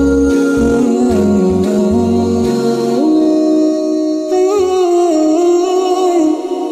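Background music: a vocal melody of long held notes that step from pitch to pitch, with humming, over a low pulsing beat that drops out about three seconds in.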